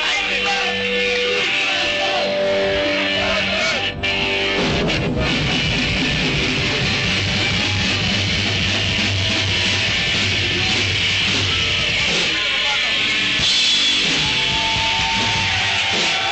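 Thrash metal band playing live and loud: distorted electric guitars, bass and drums. Held, ringing guitar notes break off briefly about four seconds in, and then the full band comes back in with fast drumming and a driving bass line.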